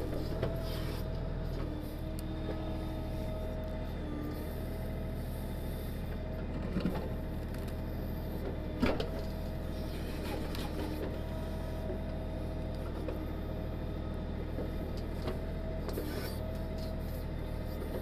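Kioti DK6010 tractor's diesel engine running steadily while it powers the KB2485 backhoe digging, with a hydraulic whine that comes and goes as the controls are worked. Twice, about halfway through, the bucket gives a sharp knock as it digs.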